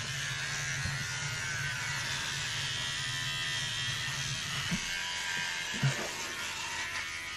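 Electric hair trimmer buzzing steadily as it cuts through a beard, the buzz dropping out about five seconds in. A couple of light knocks follow, the louder one about a second later.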